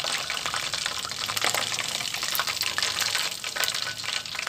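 Chicken wings frying in hot cooking oil: a steady sizzle thick with small crackling pops.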